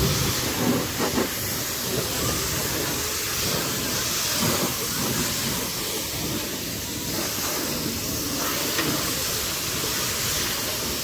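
Water jet from a high-pressure plunger-pump car washer spraying against a car, a steady hiss.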